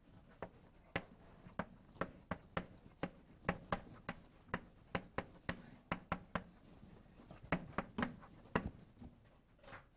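Chalk on a blackboard as a sentence is handwritten: a string of sharp, irregular taps and short scrapes, about two or three a second.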